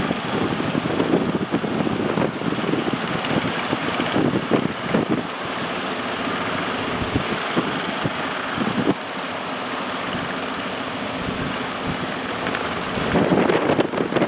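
Strong wind buffeting the microphone over the steady rush of surf, with gusts heavier near the start and again near the end.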